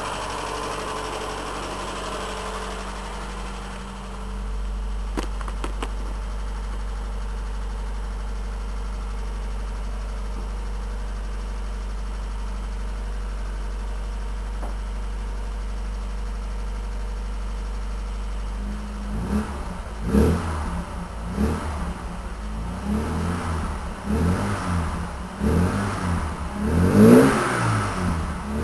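Opel Rekord E2's 2.4-litre four-cylinder engine (Omega A C24NE on a Varajet II carburettor) idling steadily. About two-thirds of the way in it is revved in a run of short throttle blips, each rising and falling in pitch, louder toward the end.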